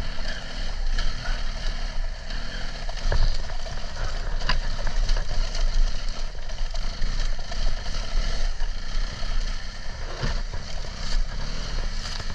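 Adventure motorcycle riding steadily, its engine running under a constant rush of wind and road noise, with a few sharp ticks scattered through.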